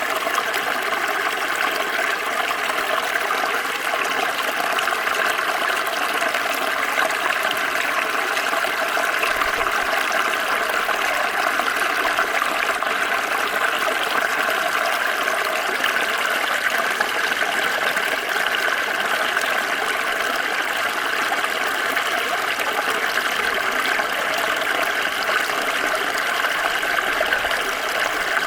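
Small stream flowing steadily over stones, a constant babbling and trickling of water.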